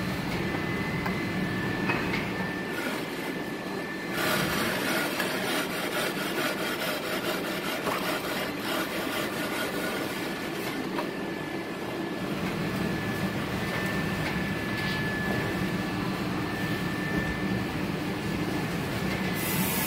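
Steady mechanical running noise with a thin high whine, growing louder and hissier about four seconds in. It sounds like workshop machinery in a cement tile factory.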